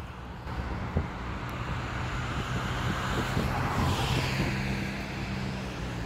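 Road traffic passing, with one vehicle going by and falling away about four seconds in over a low steady engine hum. There is a short knock about a second in.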